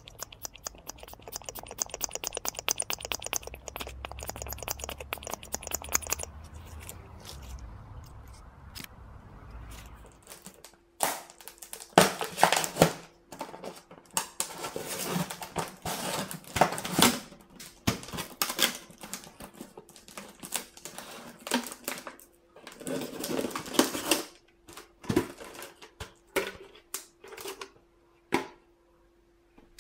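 A run of fast, even clicks for about six seconds. After a pause come irregular knocks and crinkles of thin plastic as a cut-open plastic bottle and a plastic container are handled.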